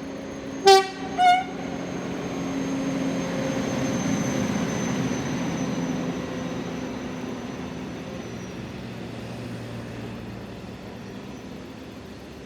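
Speno rail grinder train sounding two short horn blasts, a lower note then a higher one, then rumbling past, loudest about four seconds in and fading away.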